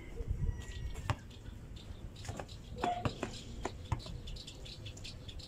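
Basketball bouncing on a packed-dirt court: a few separate thuds as it is dropped and dribbled, over a low steady outdoor rumble.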